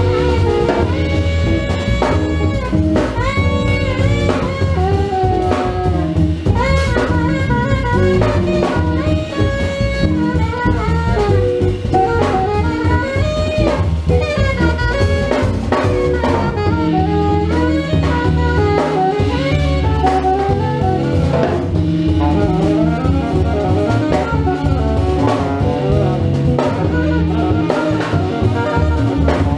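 Live jazz quartet playing: an alto saxophone carries the melodic line over electric guitar, upright double bass and drum kit.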